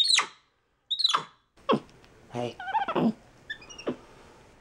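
Black-capped capuchin monkey giving a series of short, high squeaks, each sweeping down in pitch: one at the start, another about a second later, then several more in quick succession.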